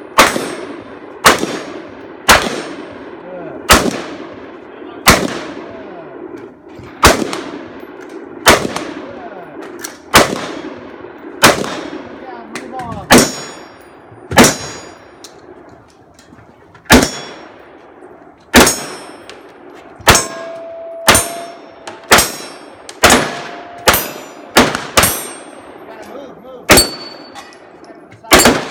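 Gunshots fired one after another at steel targets, each followed by the ringing clang of a steel hit. The shots come about one every second or so at first and quicken to about two a second in the second half, where some hits leave a ringing tone hanging.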